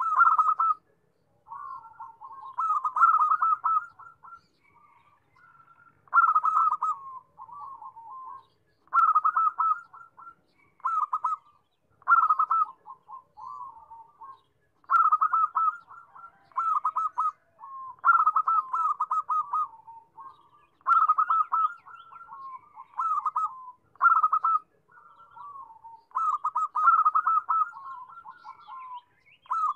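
Zebra dove (perkutut) singing: phrase after phrase of quick staccato cooing notes, with short pauses between phrases.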